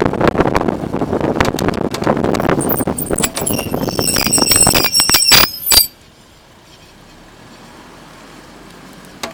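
Suzuki Swift ZC33S moving with a rapid clattering rattle from the rear suspension, a 'kata, kakkakaka' like limited-slip differential chatter, caused by a loose ride-height lock nut on a rear coilover damper. From about three and a half seconds in, the metal rear brake pads squeal in high tones, and the noise cuts off abruptly about six seconds in.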